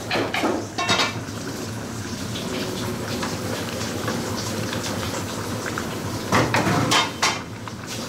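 Long metal spoon clanking and scraping against large aluminium stockpots while stirring, in two bouts of clatter, about half a second in and again around seven seconds in, over a steady low kitchen hum.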